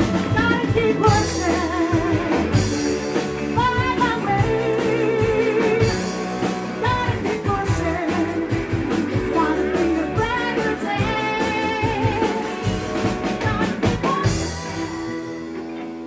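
Live blues band: a woman singing with wide vibrato over electric guitars and a drum kit. Near the end a cymbal crash, then the band holds a last chord that dies away as the song finishes.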